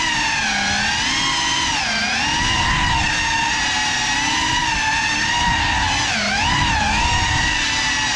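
FPV drone's electric motors and propellers whining from on board, the pitch sliding down and back up with the throttle, most clearly around two seconds in and again around six seconds in.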